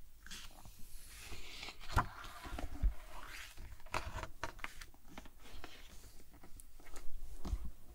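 Close-miked page of a large glossy hardcover picture book being turned: the stiff paper rustles and scrapes, with a couple of sharp snaps as it flips over. Afterwards, hands rub and tap on the page as it is smoothed flat.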